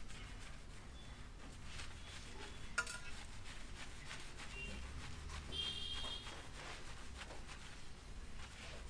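Hands scrubbing shampoo lather into wet hair: soft, squishy rubbing with a fine crackle of foam bubbles. A sharp click comes about three seconds in.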